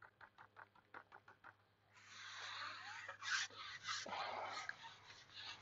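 Faint patter of water drips and feed falling from a pole pot onto the lake surface: about ten small ticks in the first second and a half. Then comes a louder, splashy hiss as the pot dips into the water.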